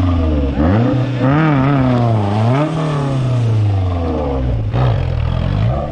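Maruti Suzuki Gypsy's engine revving up and falling back several times as the jeep crawls over a steep, rocky mud slope.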